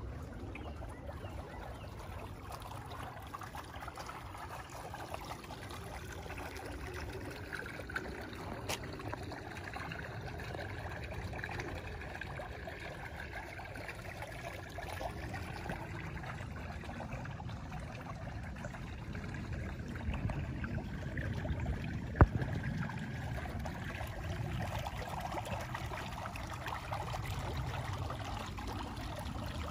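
Steady trickle of water in a garden pond, with one sharp click about two-thirds of the way through.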